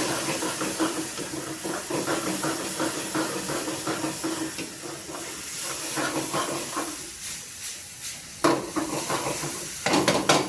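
Vegetables and spices sizzling in hot oil in a kadai while being stirred, the spatula scraping and clicking against the pan. A few sharper knocks on the pan near the end.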